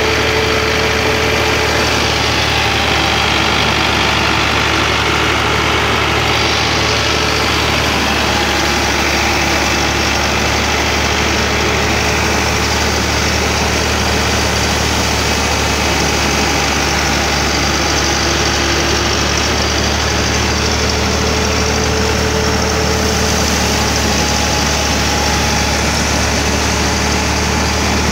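Belt-driven grain thresher running, a steady mechanical drone with constant level as cut crop is fed into its chute.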